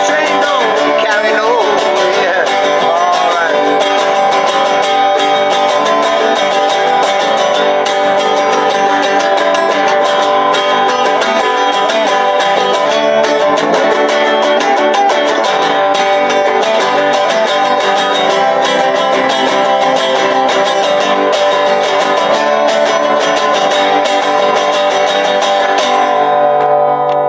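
Acoustic string band playing an old-time traditional tune: a resonator guitar strummed together with a banjo, and a harmonica on a neck rack playing over them. The playing thins out in the last second as the tune comes to its end.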